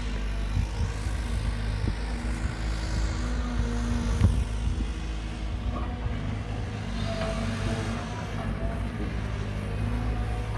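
Caterpillar 320 GC hydraulic excavator's diesel engine running steadily under work, with a sharper knock about four seconds in.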